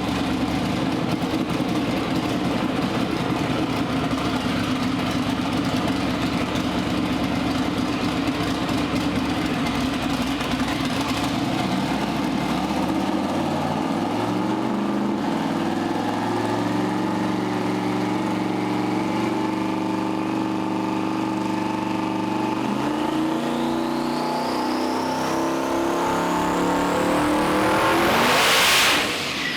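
Methanol-fuelled twin-turbo LS V8 running on a hub dyno: a rough, uneven running at first, then revs climbing in steps under dyno load. Over the last several seconds a rising turbo whistle climbs with the revs to a loud peak, then cuts off sharply as the throttle closes.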